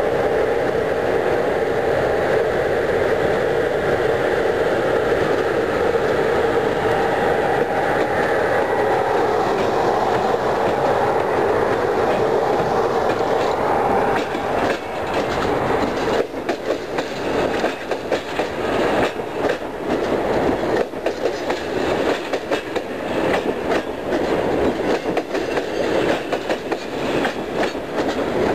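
CFR class 41 (060-EA) electric locomotive running past with a steady hum. From about halfway, passenger coaches roll by, their wheels clattering over the rail joints.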